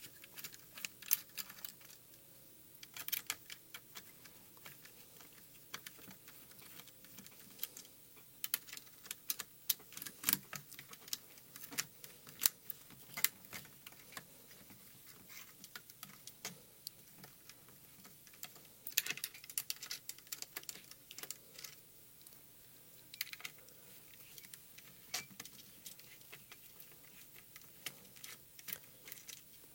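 A screwdriver undoing the crosshead screws that hold a radio transmitter's gimbal in its plastic case, with irregular small clicks and ticks of the driver, the screws and the handled parts.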